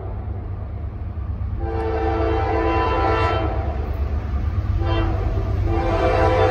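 Diesel locomotive air horn sounding as the train approaches, a multi-note chord blown long, then briefly, then long again, the closing pattern of a grade-crossing signal. A low rumble runs underneath.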